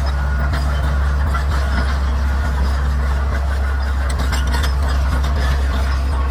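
Bulldozer's diesel engine running steadily with a deep, constant hum. Scattered sharp clicks and cracks sound over it.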